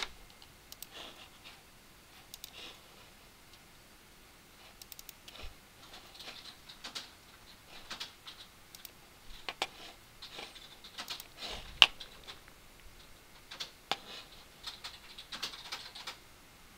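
Irregular, scattered clicks and taps of a computer mouse and keyboard in use, one sharper click about twelve seconds in.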